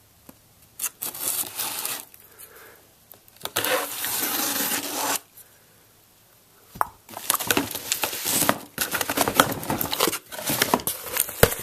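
Packing tape on a cardboard box being slit with a knife, with short scraping strokes in the first half. After a brief pause, the tape tears and the cardboard flaps are pulled open, crackling and rustling with sharp clicks.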